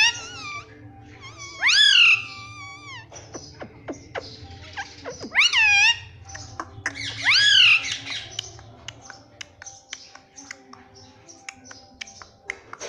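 Ring-necked parakeet calling: three loud drawn-out calls that rise and then fall in pitch, about two, five and a half, and seven to eight seconds in, with many short sharp clicks between them.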